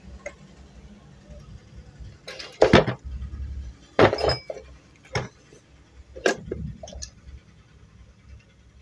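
Heavy cast-iron sewing machine head handled on a workbench: a handful of sharp metal knocks and clinks as it is tilted over and set back down, the loudest about three and four seconds in.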